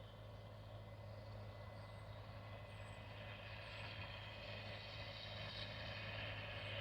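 Harvest machinery engine running steadily with a low, even drone, and a hissing mechanical rush that grows louder over the second half.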